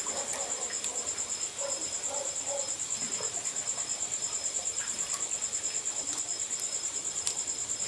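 A cricket chirping in a steady, high-pitched trill that pulses about five times a second, with a few faint clicks.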